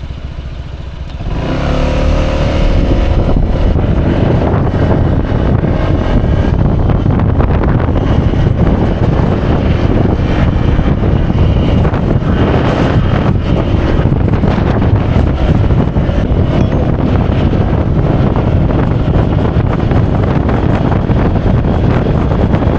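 Honda PCX scooter's single-cylinder engine pulling away about a second and a half in, then riding along steadily, its engine mixed with wind and road noise.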